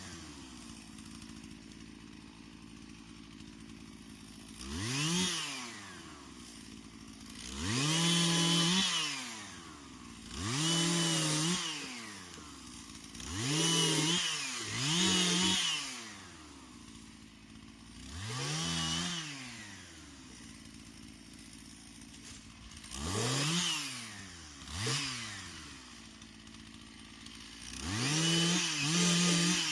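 Two-stroke chainsaw revving up in about nine short bursts, each rising quickly, holding for a moment and dropping back to a steady idle between them, as in a series of short cuts.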